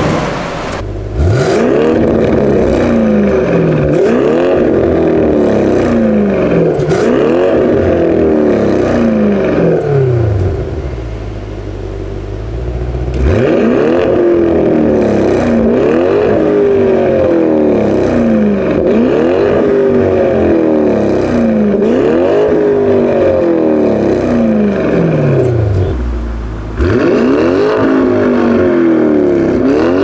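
Audi C8 RS7's twin-turbo V8 free-revving again and again through a Fi valvetronic catback and catless downpipe with the valves open. The engine speed rises and falls roughly every two seconds, and it drops back to idle twice: about ten seconds in, and again near the end.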